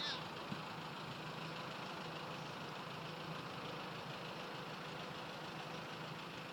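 Faint, steady idling of a vehicle engine.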